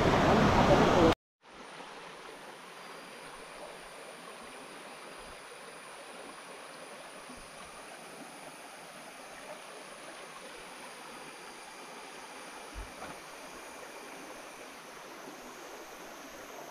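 A loud, even rushing noise for about the first second, cut off abruptly, then a steady, much quieter hiss like running water.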